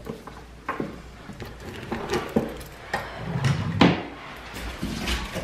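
Handling noise: a series of knocks and clicks as dog leashes and collars are picked up from a drawer and a wooden tabletop, the loudest knock nearly four seconds in.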